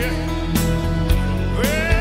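Live band playing a slow rock ballad: sustained chords under a few drum hits. Near the end, a man's voice comes in on a held, wavering note.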